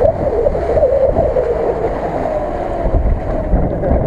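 UAZ-469 engine working hard through a water-filled mud rut, its note rising and falling, with mud and water splashing and wind buffeting the microphone.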